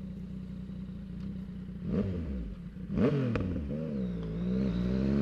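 2023 Yamaha MT-09's three-cylinder engine through a full Mexx Caracol exhaust, pulling under way: the revs climb sharply about three seconds in, dip, and climb again near the end.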